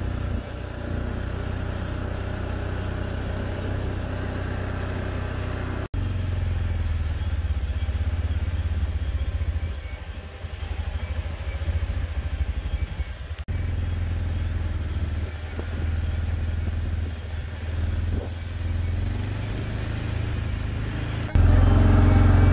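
Off-road quad (ATV) engine running steadily as it rides a dirt road. The sound drops out briefly twice where the footage is cut, and turns suddenly louder near the end.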